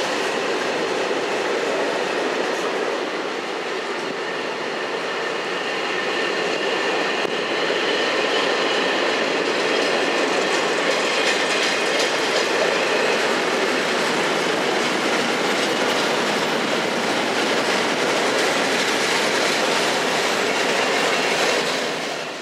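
Container freight train's wagons rolling past on the rails, a steady rumble with the clatter of wheels on the track, fading out near the end.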